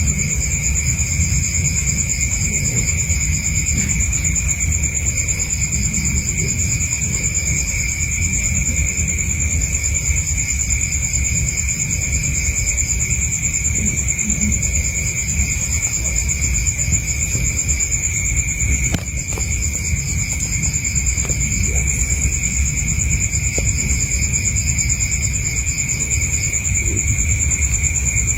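A sleeping cat snoring, heard as a continuous low rumble, under a steady high-pitched trill.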